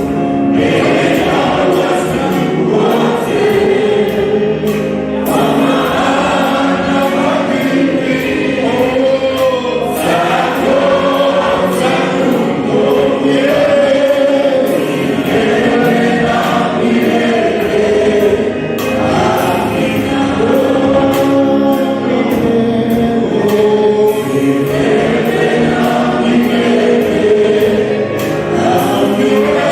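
Choir singing a gospel song with a steady beat.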